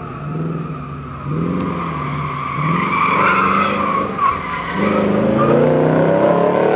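Triumph Stag with a 3.5-litre fuel-injected V8 driven hard uphill, its engine note falling and rising with the throttle while the tyres squeal through a bend in the middle. Near the end the engine gets louder and climbs in pitch as it accelerates out of the corner.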